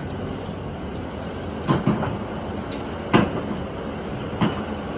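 Steady low job-site rumble with a few sharp knocks on top: a quick double knock about two seconds in, then single knocks at about three and about four and a half seconds.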